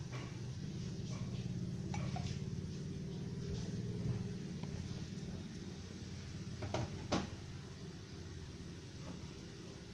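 A few sharp clinks of a utensil against a cooking pot, the loudest two close together near the end, over a steady low rumble from the pot on the lit stove.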